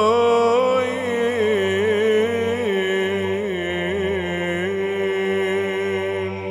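Romanian Orthodox Byzantine chant: a voice draws out one syllable in a long, ornamented melisma that winds up and down in pitch over a steady low held drone (ison).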